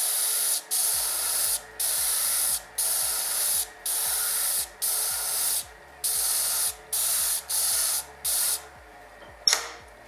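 End of an aluminium-honeycomb acrylic pen blank sanded square against a 120-grit sanding disc on a lathe running at about 1200 rpm. It is pressed in and eased off about once a second, giving a gritty hiss each time. The sanding stops near the end, followed by a single knock.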